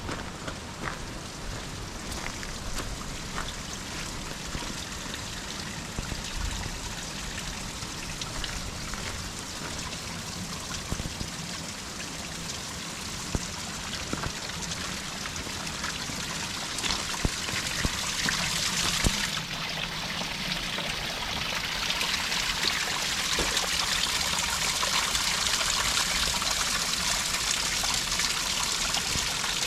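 Mountain spring water trickling and splashing steadily, growing louder over the last third.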